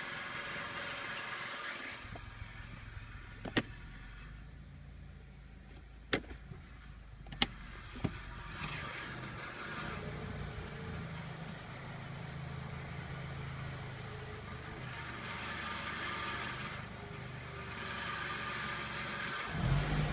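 Car engine idling with a steady low hum while gears are engaged with the brake held. Four sharp clicks or knocks come in the first half, and there are stretches of hiss at the start and in the last third. This is the extraneous noise on engaging a gear against the brake.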